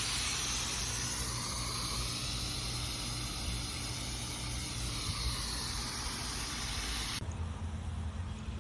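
Eden 96212 oscillating sprinkler spraying water in a steady hiss while stuck in one position, not oscillating. The hiss cuts off suddenly about seven seconds in, leaving a low rumble.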